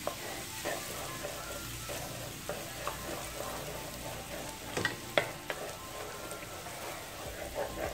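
Butter and minced garlic sizzling in a metal wok as the butter melts, stirred with a wooden spatula that scrapes and taps the pan. Two sharper knocks of the spatula come about five seconds in.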